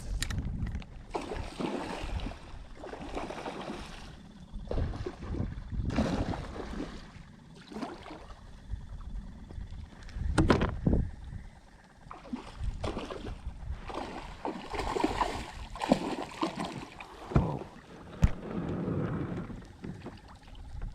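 Water sloshing and gurgling around a kayak hull, with occasional sharp knocks.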